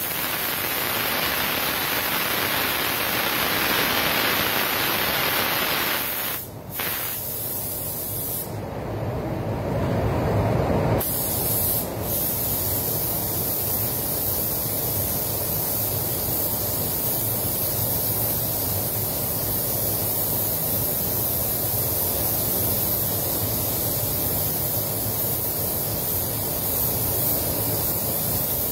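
Gravity-feed paint spray gun hissing as it sprays base coat at low air pressure. The spray dips briefly about six seconds in and changes tone around eleven seconds, then runs steadily.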